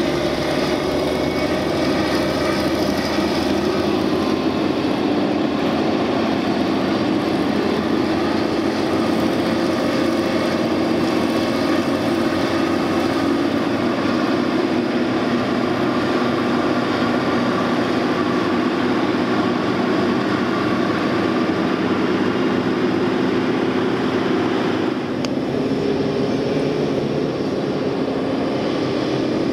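Diesel engines of a twin-engine Caterpillar 637 wheel tractor scraper running steadily as a continuous loud drone, with the engine note shifting near the end.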